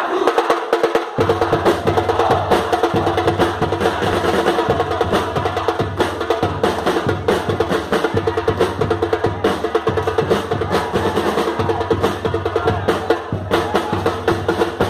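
A drum band playing a fast, samba-style rhythm: deep bass drum beats under rapid higher drum strokes, starting about a second in.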